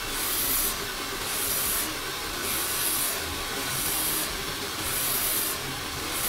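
Handheld hair dryer blowing steadily, its hiss brightening and fading about once a second.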